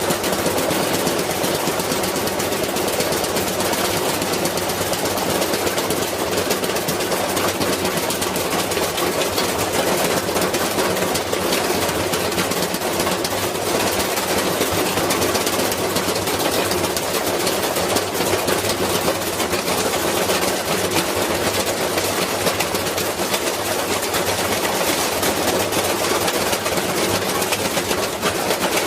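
Washing machine running with a fast, steady mechanical rattle over a low hum.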